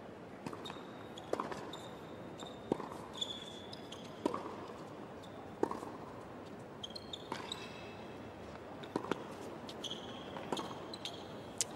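Tennis rally on a hard court: a serve and then a racket-on-ball strike about every one and a half seconds, with short high squeaks of shoes on the court between strikes.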